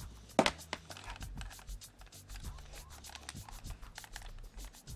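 Screwdriver scraping and clicking in a stuck screw of a power strip's housing, a sharp click about half a second in. Soft background music underneath.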